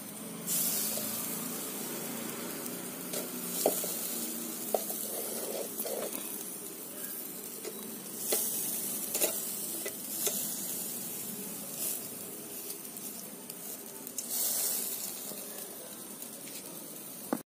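Marinated chicken sizzling on a wire grill over hot charcoal: a steady hiss that swells every few seconds, with a few light clicks of a metal knife against the grill.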